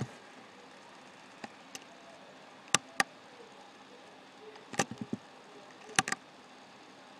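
Computer mouse clicking several times, single clicks and quick pairs, over a faint steady hiss.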